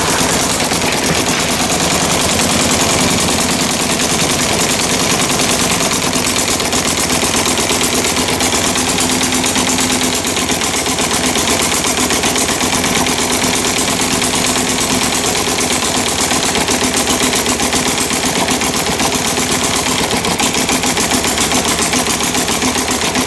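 Stuart Sandhurst model gas engine running steadily: a fast, even string of sharp firing pops.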